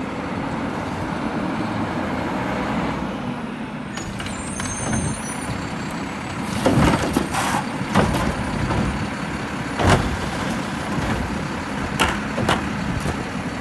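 Front-loading garbage truck with a Curotto-Can automated arm running as it pulls up to a wheeled trash cart. A brief high squeal comes about four to five seconds in. From about halfway through, the arm grabs and lifts the cart with a series of loud clanks and bangs.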